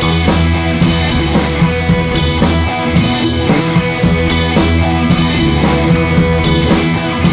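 Background rock music with drums, bass and guitar.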